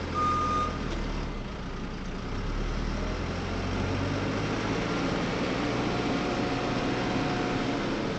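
JCB 3CX backhoe loader's diesel engine running steadily at low revs, with a short high tone near the start.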